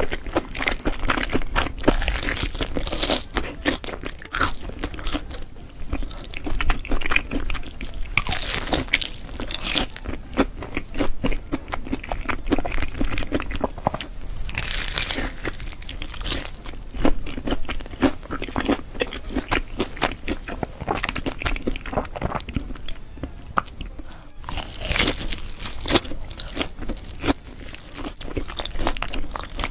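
Close-miked eating: repeated crunchy bites and chewing of crisp food, a rapid crackle of sharp clicks that rises and falls in clusters.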